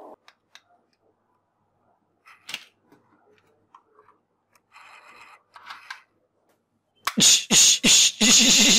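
Faint clicks and rustling from handling plastic toys, then about seven seconds in a loud burst of gunshot-like toy gun shooting sounds: several sharp bangs in quick succession running into a continuous warbling rattle.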